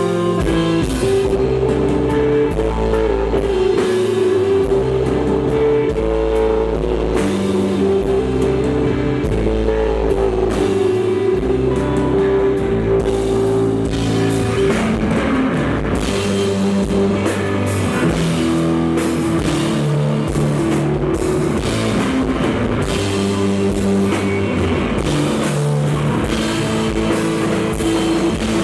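Desert rock band playing live: electric guitar, bass and drum kit, with sustained low bass notes under a steady beat.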